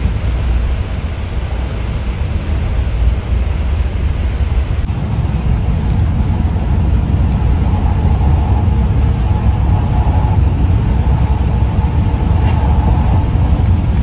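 Inside a moving bus: a steady, deep rumble of engine and road noise.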